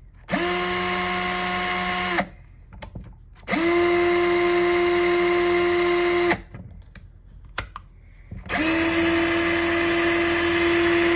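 Hercules 12 V compact drill/driver running free with no load, on its drill setting. It gives three steady motor whines of two to four seconds each, and each one starts and stops cleanly when the trigger is pressed and released.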